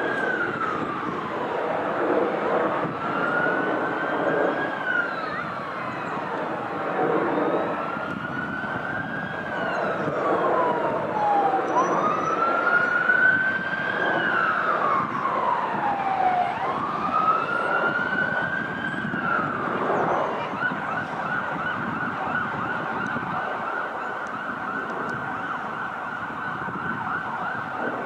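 Emergency vehicle siren wailing, its pitch rising and falling slowly about every four seconds, then switching about twenty seconds in to a rapid pulsing tone held at one high pitch. A broad rumble runs underneath.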